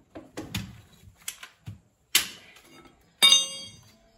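Metal objects being handled: a few light clicks and knocks, a sharp knock about two seconds in, then a loud ringing metal clank about three seconds in.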